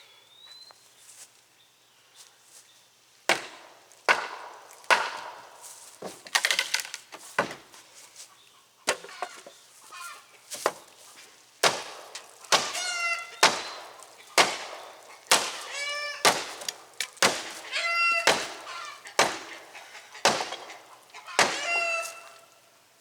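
Rotted deck boards being struck and broken apart: a run of sharp, irregular knocks on wood from about three seconds in, with several short squeals mixed in over the second half.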